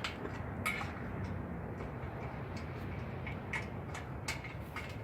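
A scatter of light metal clicks and taps as a locking pin is fitted into the steel tray's welded inserts on a log splitter, over a steady low hum.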